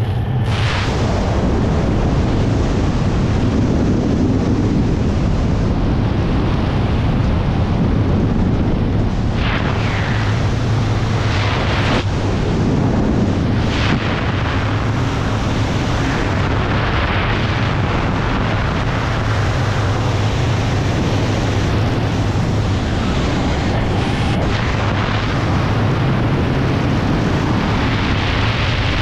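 Freefall airflow blasting over an action camera's microphone during a skydive: a steady low roar with surges of hiss every few seconds.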